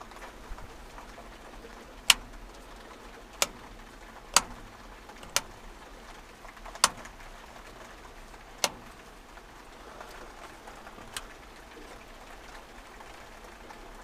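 Sharp clicks of the rocker switches on an old combi boiler's control panel being pressed by a gloved hand, six loud clicks one to two seconds apart and a fainter one later.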